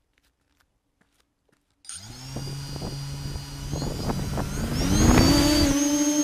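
A multirotor drone's electric motors and propellers start suddenly about two seconds in with a steady whine. About three seconds later the pitch rises as the throttle goes up for lift-off, then holds steady.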